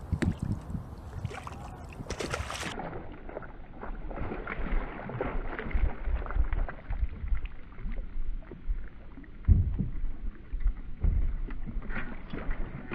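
Water sloshing and splashing against a kayak hull, with a hooked fish thrashing at the surface beside the boat. Two dull thumps come about ten seconds in.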